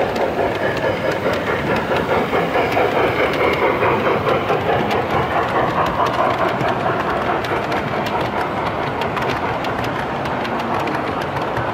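Model freight train rolling past, its wheels clicking over the rail joints, with a steady running noise under the clicks.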